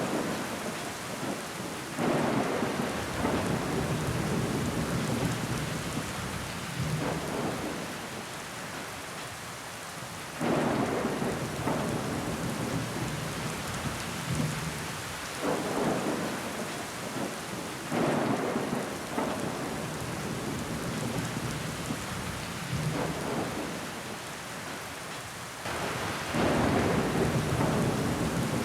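Rain falling against a window pane, a steady hiss with louder surges that start suddenly every several seconds.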